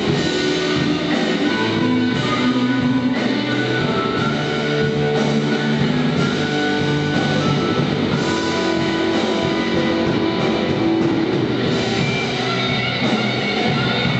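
Rock band playing: electric guitar and drum kit with bass, steady throughout.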